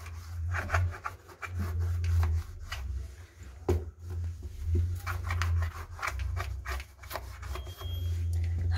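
Irregular rubbing and scraping with scattered clicks, over a low rumble: shoes scuffing on a tiled floor and a phone being handled close to the microphone.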